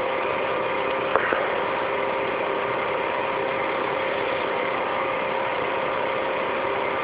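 Steady background hum and hiss with a few constant tones, and a single short click about a second in.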